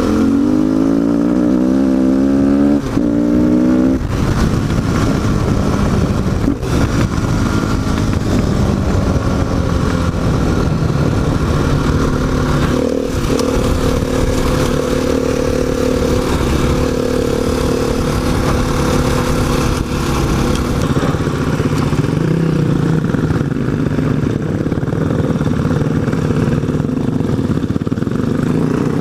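Single-cylinder dual-sport motorcycle engine accelerating, its pitch climbing and dropping back through three or four quick upshifts in the first few seconds, then running steadily under way with a rushing noise beneath it.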